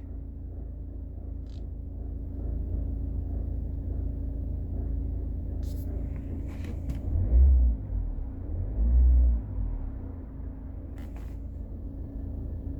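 Citroën Picasso engine running with a steady low rumble, broken by two heavy low surges about seven and nine seconds in. The owner describes this as the engine juddering ('broute', 'tung, tung, tung') and finds the noise alarming.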